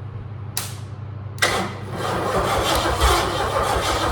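Ford 351 Cleveland V8 being cranked by its starter motor, hot-wired through an old solenoid: a short click about half a second in, then a sharp clack and the engine spins over with a pulsing rhythm. It turns over without firing, since the ignition coil is not yet wired.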